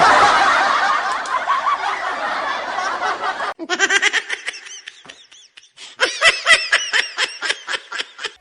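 A noisy clamour of overlapping voices that cuts off abruptly about three and a half seconds in, followed by laughter in quick, repeated bursts.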